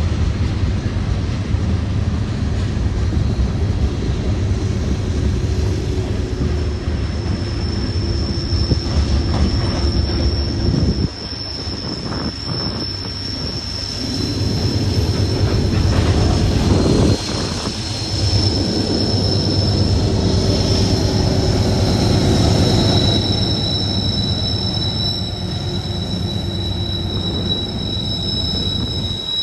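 Union Pacific manifest freight train rolling past: a steady low rumble of cars on the rails, with wheels squealing in long high steady tones, a second, lower squeal joining about halfway through. The mid-train distributed power locomotive, a GE AC44CW diesel, passes about halfway through.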